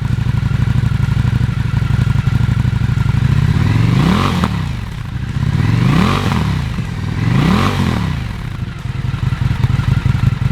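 Indian FTR1200's V-twin engine running through an S&S Grand National stainless slip-on muffler: idling, revved three times with the pitch rising and falling, then settling back to idle.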